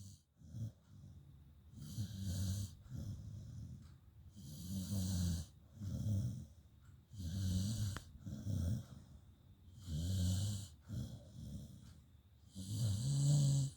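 Slow, regular snoring: a loud snore about every two and a half seconds, each a low rumble with a breathy hiss, with quieter breaths between.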